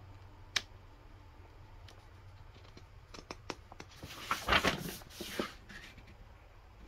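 Pages of a paper instruction manual being handled and turned. A single light tap comes first, then a few soft ticks, then the rustle of a page turning about four to five seconds in.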